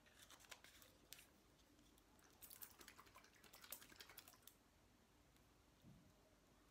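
Faint rapid clicking and tapping of a small plastic hot-sauce bottle and its cap being handled, in two short spells.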